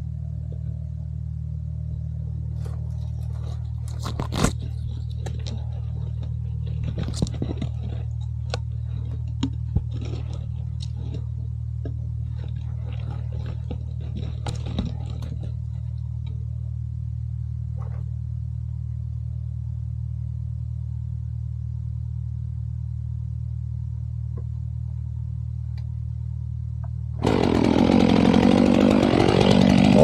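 Stihl MS 500i chainsaw idling steadily, with scattered snaps and knocks of branches being handled in the first half. A little over three seconds before the end the saw is opened up to full throttle and starts cutting at the base of a conifer trunk.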